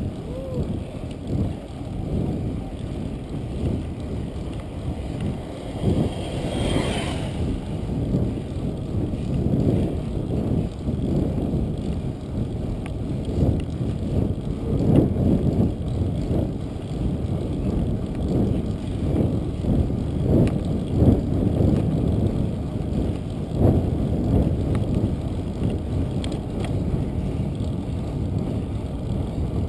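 Wind buffeting the microphone of a camera carried on a moving bicycle: a continuous low rumble that gusts up and down. A short higher hiss rises and fades about seven seconds in.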